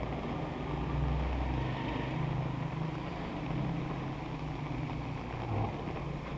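Car engines running close by in slow traffic on a wet street, a low rumble over a steady hiss. The rumble is strongest about a second in.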